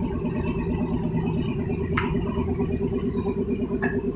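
An engine running steadily at idle, a fast-pulsing hum, with two short clicks, about two seconds in and near the end.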